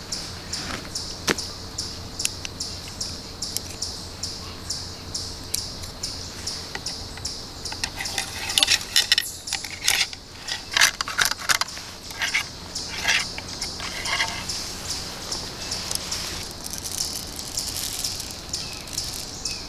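A ramrod working the load down the barrel of a single-shot 20-gauge shotgun converted to a muzzleloader: a cluster of scraping knocks in the middle. Under it, a steady high chirping, about four a second, typical of insects in the woods.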